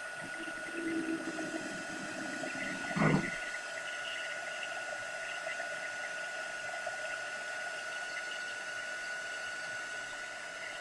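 Handheld craft heat tool running steadily, a constant blowing hiss with a thin high whine, held over a slate coaster to dry the paper transfer on it. A single knock about three seconds in.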